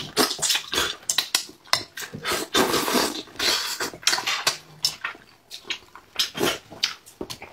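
Close-miked mouth sounds of eating sauce-braised crucian carp: wet slurps, sucks and lip smacks as flesh is pulled off the bones, with a longer slurp near the middle.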